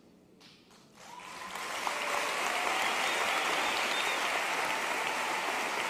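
Audience applauding, starting about a second in after a brief hush, then building and holding steady.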